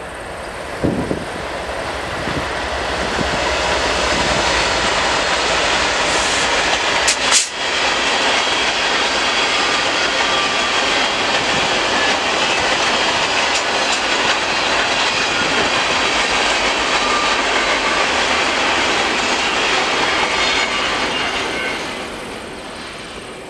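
CN grain train of covered hopper cars rolling past, a steady noise of steel wheels on the rails. It builds over the first few seconds and fades away near the end, with one sharp click about seven seconds in.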